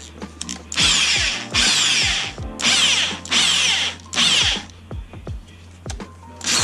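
Electric drill with a step drill bit cutting through a plastic trim panel in several short bursts of under a second each, the bit screeching as it bites. The step bit is enlarging a hole toward about 3/4 inch.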